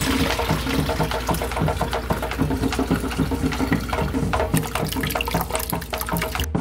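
Freshly blended passion fruit juice poured through a strainer, the liquid splashing and trickling into the container below.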